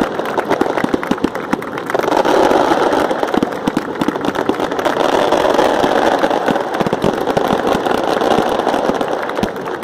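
A crowd clapping, many hands in quick irregular claps over a steady noisy din.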